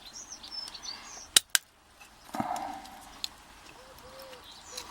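Two sharp metallic clicks in quick succession about a second and a half in, then a brief scrape, as tools work the retaining clip off a euro lock cylinder. Birds chirp in the background, and a dove coos softly near the end.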